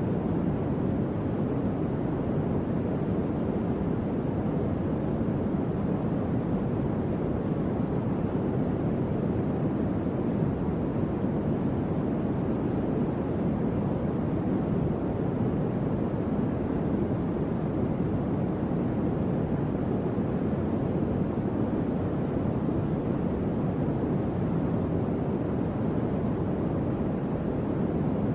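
Electric fan running with a steady, even whoosh of moving air, low and soft with little hiss, with no hum or ticks.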